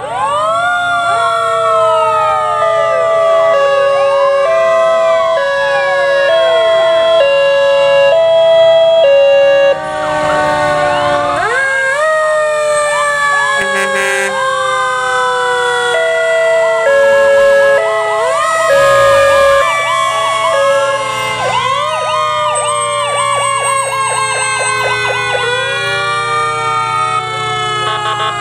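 Several fire truck sirens sounding at once. One winds up quickly and coasts down slowly, three times, over other rising and falling wails and a two-tone hi-lo siren, with a fast warbling yelp near the end.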